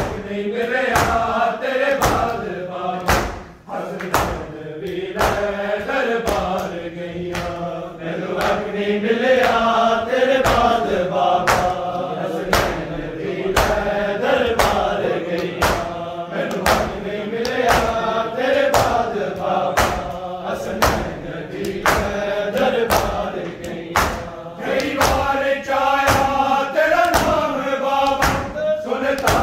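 Men's voices chanting a Punjabi noha, with a steady beat of sharp chest-beating slaps (matam) from the crowd of mourners.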